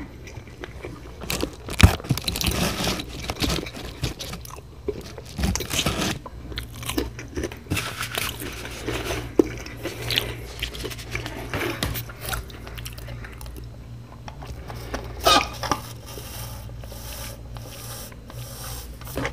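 A person chewing and biting food close to the microphone: irregular crunching and mouth sounds of eating. There is a louder moment about 15 seconds in.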